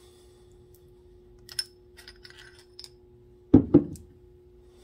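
Aluminium model-engine parts handled by hand: a few light metallic clicks and clinks, then two heavier knocks about a quarter of a second apart, over a faint steady hum.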